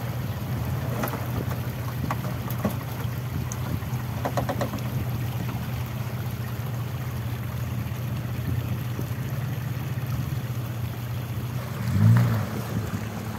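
Off-road 4x4 engine running steadily under the rumble and hiss of driving over rough ground, with a few knocks and rattles. About twelve seconds in it briefly swells louder and bends in pitch.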